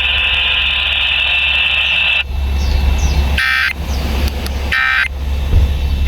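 Emergency Alert System End of Message signal heard over broadcast radio: after a steady high-pitched hiss stops about two seconds in, short buzzing digital data bursts sound about 1.3 seconds apart, the third starting near the end. A low hum runs underneath.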